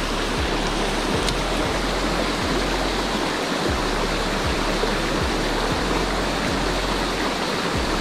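A mountain river's flowing water and a small waterfall spilling into a pool make a steady, even rush.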